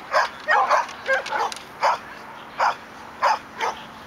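A dog barking repeatedly in short barks at an uneven pace, some coming in quick pairs.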